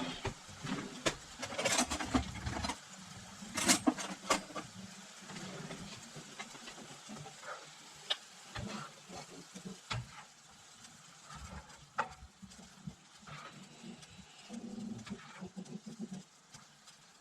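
Serving utensil scraping and clinking against the pan and bowl as stir-fry is dished up, busiest in the first few seconds, then scattered clicks and knocks.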